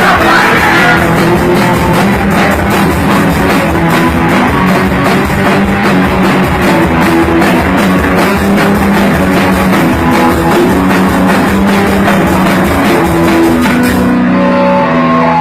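Punk rock band playing live: electric guitar, bass and drum kit at full volume. Near the end the drums stop and the guitar chord rings on.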